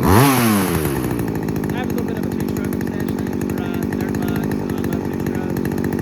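Two-stroke chainsaw engine idling after carburettor adjustment, with a quick blip of revs about the first second before it settles back to a steady idle.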